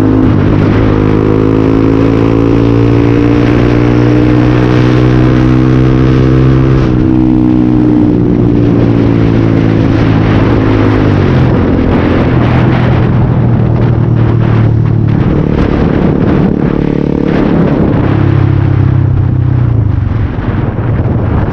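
Yamaha R15 motorcycle's single-cylinder engine running on the move through a noisy silencer. Its note climbs slowly for about seven seconds, then falls, drops again around eleven seconds and dips briefly near eighteen seconds, as the rider changes speed.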